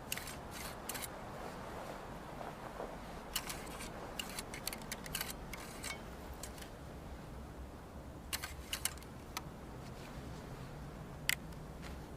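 Light metallic clicks and rattles from handling a Whitworth muzzle-loading rifle, in scattered clusters, the sharpest about eleven seconds in.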